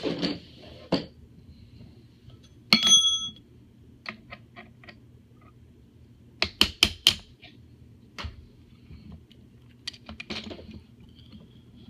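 Metal-on-metal taps and clicks from a pin punch driving a ridged pin out of an Echo 1 Red Star RPK airsoft gun's body. There is one ringing metallic clink about three seconds in and a quick run of four sharp taps around six and a half seconds, with scattered lighter clicks.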